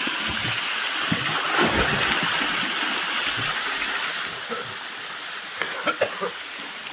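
Steady rush of flowing water, growing somewhat quieter about four seconds in, with faint voices in the background.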